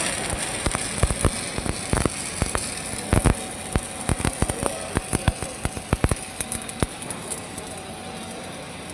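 Arc welding on steel: a steady hiss with irregular crackles and pops, fewer toward the end.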